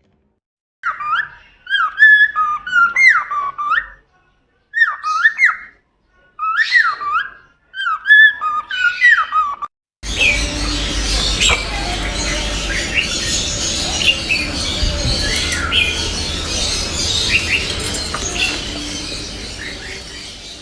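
Bird calls: loud whistled and chirping phrases in short bursts separated by silences. From about ten seconds in they give way to a steady outdoor hiss with scattered chirps over it.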